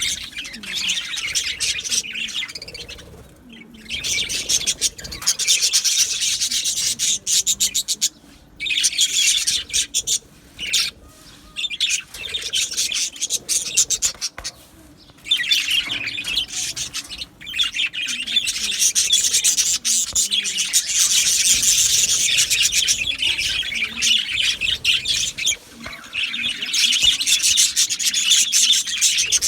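Budgerigars chattering and warbling in a rapid, scratchy stream of high chirps and clicks, coming in spells of several seconds with short pauses between.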